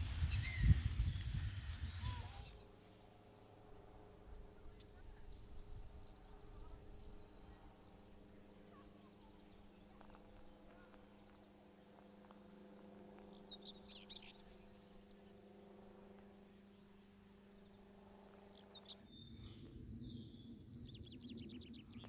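Common whitethroat singing: short, fast, scratchy warbling phrases with rapid high trills, repeated several times over a faint steady low hum. The first two seconds hold a loud low rumble with a few high bird chirps.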